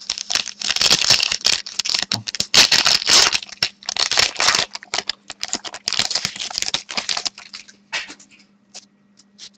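Foil trading-card pack wrapper crinkling and tearing as it is opened and the cards are handled, a dense crackle for about seven seconds that then thins to a few light clicks.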